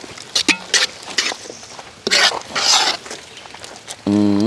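Metal spoon stirring and scraping thick crushed potatoes in coconut sauce around a metal pot: short soft scrapes and light clinks. Near the end, a brief low hum-like voice sound that drops in pitch as it ends.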